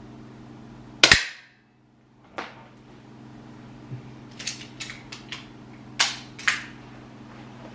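APS air pistol firing one shot about a second in, a sharp crack. It is followed by a run of small mechanical clicks and two sharper snaps as the pistol is worked between shots.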